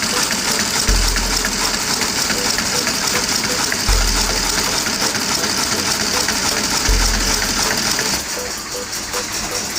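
Background music with a deep bass note about every three seconds over a steady hiss.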